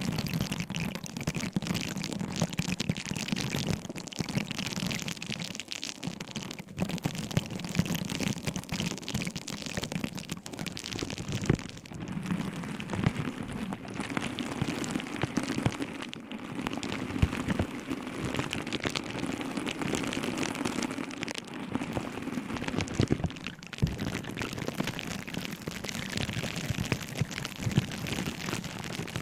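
ASMR object sounds close to the microphone: a dense, continuous crackling and tapping made of many small clicks, with a few sharper ticks standing out here and there.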